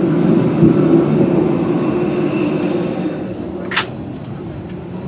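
Steady hum and rush of a parked jet airliner on the ramp, heard at its boarding door; it grows fainter about three seconds in. A single sharp click near the end.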